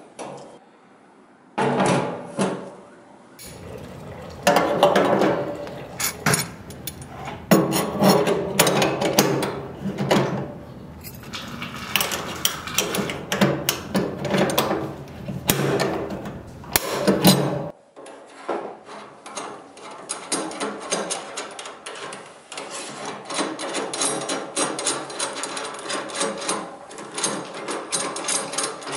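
Metal clicks, scrapes and rattles of a garbage disposal's 3-bolt sink mount being assembled by hand: stainless sink flange, snap ring, and mounting rings with their screws. For the last ten seconds or so it becomes a quieter, steady run of quick light clicks as the mounting hardware is turned.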